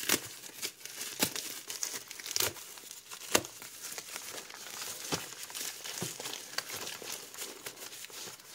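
Plastic bubble mailer crinkling and tearing as it is pulled open by hand: a steady rustle broken by sharp crackles about once a second, the loudest about three seconds in.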